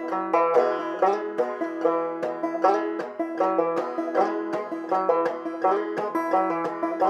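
Banjo played clawhammer style: a repeating phrase of a slide up the neck and a pull-off, each followed by a bum-ditty strum. A high drone note rings steadily under the changing notes.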